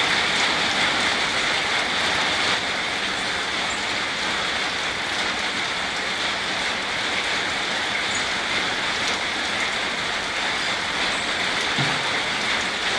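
Steady rain falling on forest foliage, an even hiss with no breaks.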